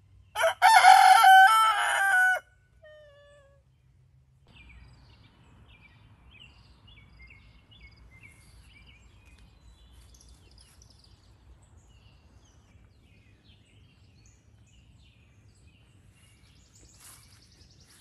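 A rooster crows once, loud, for about two seconds at the start, trailing off into a few faint falling notes. After that only faint wild birds chirping remain.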